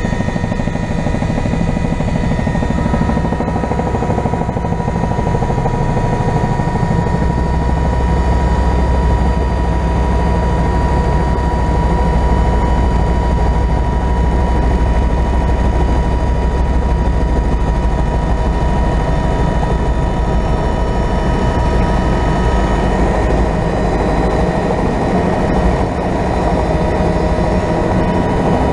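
Helicopter engine and rotor heard from inside the cabin: a loud, steady low drone with a constant high whine above it. The low drone grows stronger from about seven seconds in.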